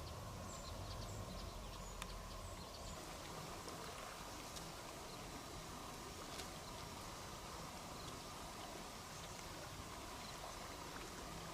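Quiet outdoor ambience by a pond: a steady low hiss, with a few faint high chirps in the first few seconds and the odd faint click.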